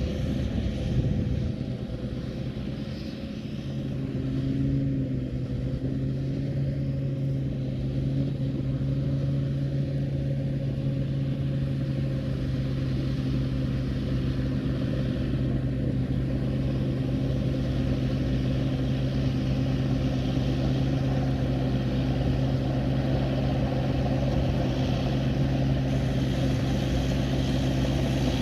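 Large rice combine harvester's engine running with a steady, even drone. Its level dips briefly about three seconds in.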